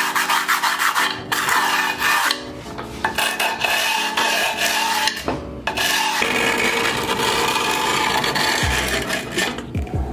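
A steel Allen key rubbed and scraped back and forth along the edge of a scooter deck over freshly laid MOB grip tape, in repeated strokes. This scores a white trim line in the grip tape so the excess can be cut off.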